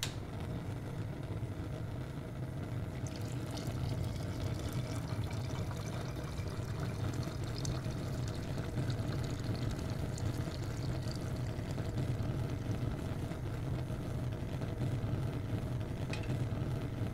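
Gas stove burner burning with a steady low rush of flame. A brief clink about sixteen seconds in as a pot is set on the grate.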